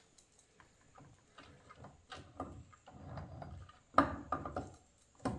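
Scattered light knocks and clinks of metal transmission parts being handled and set down, with a sharper clunk about four seconds in.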